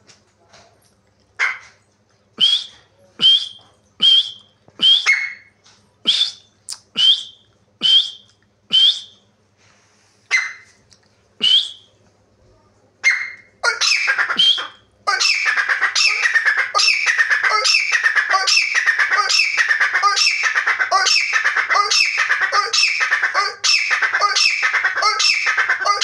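Grey francolin calling: about a dozen single sharp notes that rise in pitch, spaced roughly a second apart, then after a short pause a loud, fast run of repeated calls, about two a second, that continues without a break.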